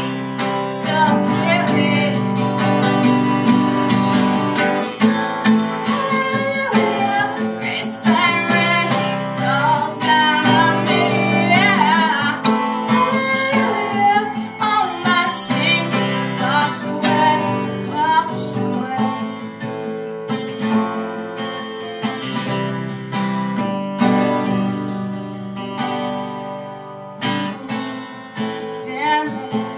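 A woman singing a worship song solo, accompanying herself on a strummed acoustic guitar.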